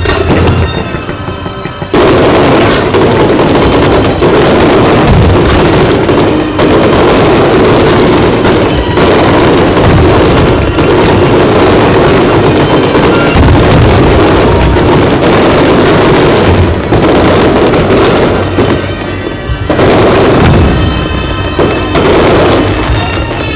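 Aerial fireworks bursting in a dense, rapid barrage, with music playing alongside. The barrage thickens about two seconds in and eases briefly near the end.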